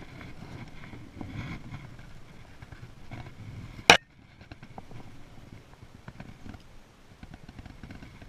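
Handling noise of a spinning rod and reel: rustling and small clicks, with one sharp, loud knock about four seconds in.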